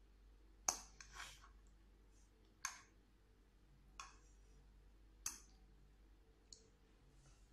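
Metal fork clicking against a non-stick frying pan as pasta is twirled and picked up: about half a dozen short, sharp clicks at uneven intervals.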